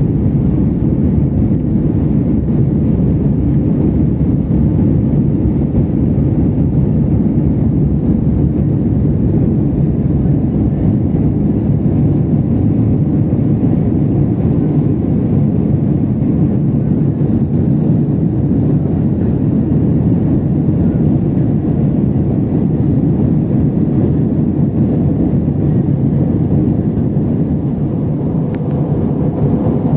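Steady low rumble inside an Airbus A320 passenger cabin in flight: jet engine and airflow noise.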